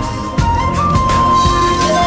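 Pan flute instrumental: a long-held melody note that slides briefly up and back, over a steady drum and bass beat.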